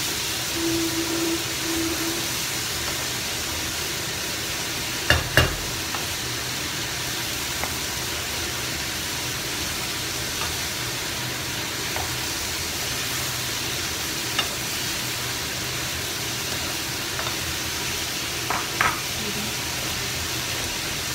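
Stir-fry of French beans, carrot and minced pork sizzling steadily in a wok with a little added water, as a wooden spatula scrapes and turns it. A few sharp knocks of the spatula against the wok, the loudest two about five seconds in and two more near the end.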